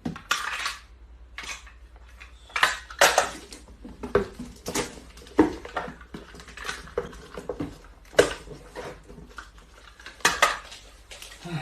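Irregular clattering and clinking of hard objects, a dozen or so sharp knocks spread unevenly across the stretch.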